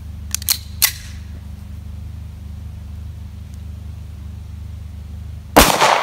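A few sharp clicks of the pistol being handled near the start. Then a single loud semi-automatic pistol shot near the end, hitting a full soda bottle, with an echo trailing off.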